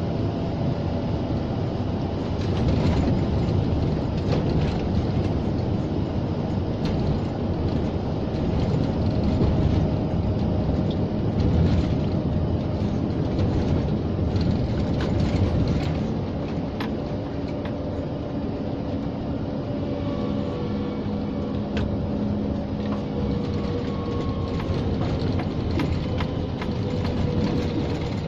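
Inside the cab of a Scania G460 truck under way: its 13-litre straight-six diesel runs steadily under a constant rumble of tyres on a wet road. The engine note and the overall level ease down a little about halfway through as the truck slows.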